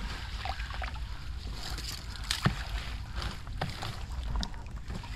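A cast net being hauled up out of the water, splashing and dripping, with a few sharp knocks, the loudest about two and a half seconds in. A steady low rumble of wind on the microphone sits under it.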